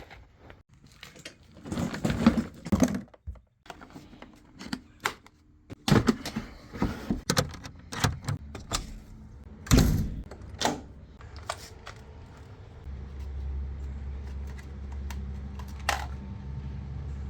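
Irregular clicks and knocks, then a steady low hum that sets in about thirteen seconds in.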